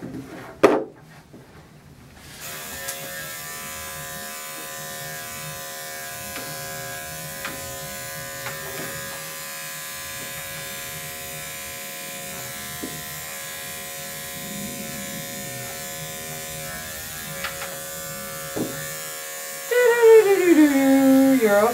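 Andis five-speed electric dog clipper switching on about two seconds in and then running with a steady buzz while it is run over the dog's coat. Near the end the dog lets out loud, falling whines.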